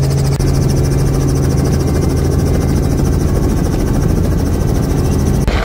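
Helicopter engine and rotor running, heard inside the cabin: a steady low hum with a fast, regular pulsing hiss above it. Just before the end the sound cuts off abruptly.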